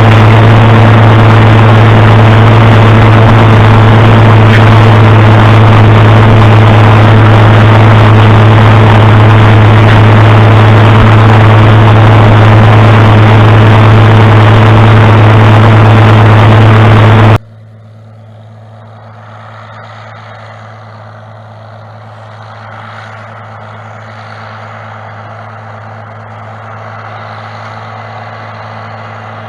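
A heavy engine running steadily at one speed, very loud and distorted. About two-thirds of the way through it cuts off abruptly to a much quieter steady engine hum with more background noise.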